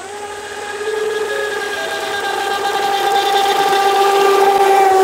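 Radio-controlled speedboat's motor whining at full speed across the water. Its pitch jumps up right at the start, then holds steady while it grows louder.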